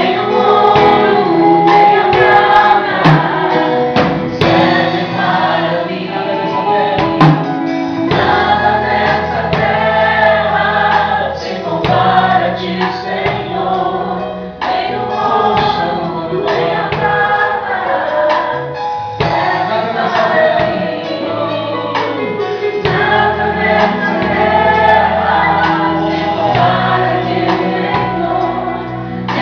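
Gospel worship song: a choir of women's and men's voices singing with a band, a steady bass line and drum beat under it.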